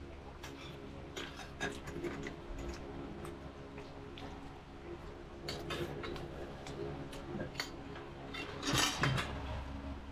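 Spoons and forks clinking and scraping on plates and foil serving trays during a meal, in scattered short clicks, with a louder scrape about nine seconds in. A steady low hum runs underneath.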